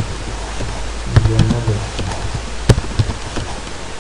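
Computer keyboard being typed on: a scattering of short, sharp key clicks at an irregular pace, over a steady background hiss.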